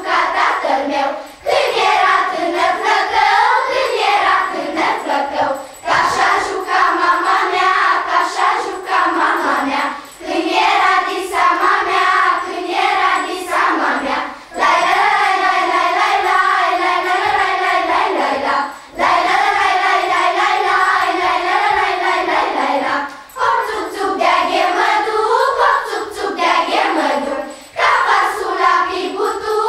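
A children's vocal ensemble singing a Christmas carol (colindă) together, in phrases broken by short breaths about every four seconds.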